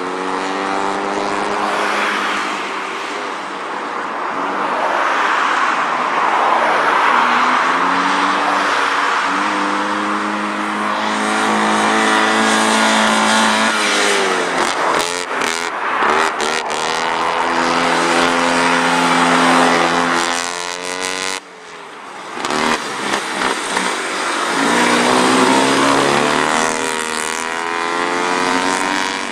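Honda N360's small air-cooled two-cylinder engine revving up and easing off again and again as the car is driven hard around a gymkhana cone course, its pitch stepping up and down. There is a brief drop in the sound about twenty-one seconds in.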